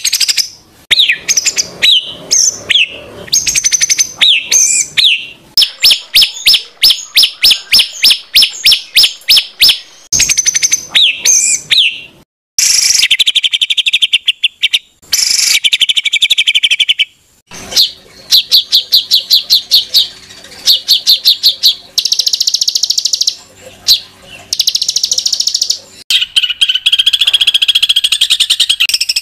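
Songbirds singing loud, high whistled phrases and rapid harsh trains of repeated notes ('tembakan'), in several recordings joined with abrupt changes about 12, 17 and 26 seconds in. This is masteran tutor song, played so that competition songbirds learn the phrases.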